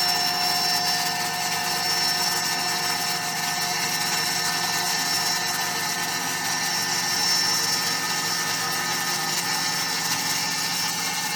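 3040 desktop CNC router milling 4 mm aluminium plate. Its spindle runs at about 10,000 RPM, driving a 3 mm slot end mill at a slow feed of about 100 mm per minute. It makes a steady, unbroken machining whine of several high tones.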